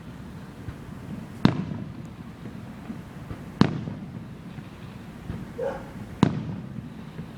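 Aerial firework shells bursting: three loud booms about two seconds apart, each trailing off in a brief rumbling echo.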